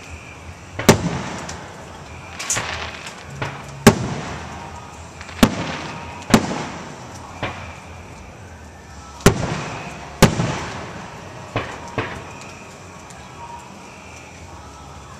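Aerial fireworks shells bursting overhead: about nine sharp bangs at irregular intervals of a second or two, each trailing off in an echo.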